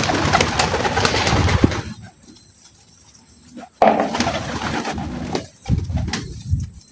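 Domestic pigeons cooing, with two stretches of rustling noise, the first lasting about two seconds at the start and the second about a second and a half in the middle.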